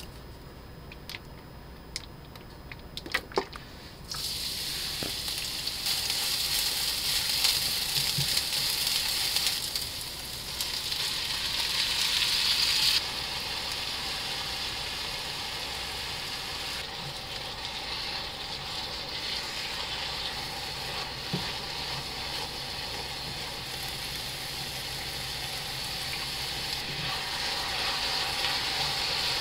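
Chopped kimchi sizzling as it is stir-fried in a frying pan. A few light clicks come first, and the sizzle starts suddenly about four seconds in. It is strongest for several seconds, then drops to a steadier sizzle.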